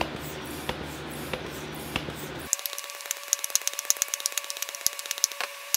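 Hand bicycle tire pump being worked to inflate a lawn tractor tire, air hissing with the strokes. About two and a half seconds in, the sound turns abruptly to a fast run of light clicks.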